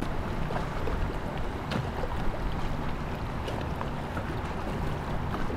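A boat's motor running steadily at low speed, with water noise and wind on the microphone.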